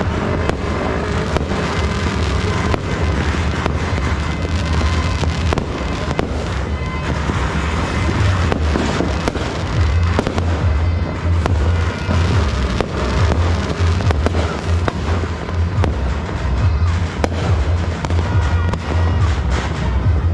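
Fireworks and firecrackers going off without pause, many bangs and crackles overlapping, with music playing underneath.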